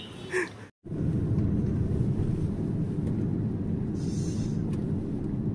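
Steady low rumble of a car being driven, engine and road noise heard from inside the cabin, starting after a brief cut about a second in.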